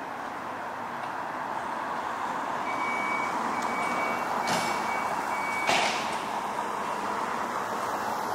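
Fire engine running in the station bay with a steady hum. In the middle, a repeating high electronic warning beep sounds about twice a second for a few seconds, and two short sharp bursts come about a second apart.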